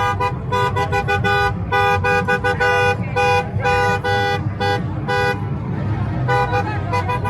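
Vehicle horn honking in a string of blasts, some short and quick, some held for about a second, sounding two notes together. The blasts pause briefly about five and a half seconds in, then start again. A low rumble runs underneath.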